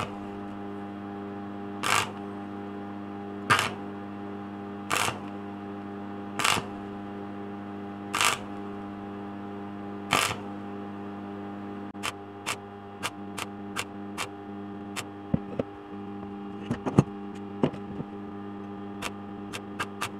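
Stick welding on steel square tubing: a steady electrical hum from the arc welder, broken by short crackling bursts of the arc about every one and a half seconds. From about twelve seconds in, these give way to quicker, irregular sharp snaps and pops.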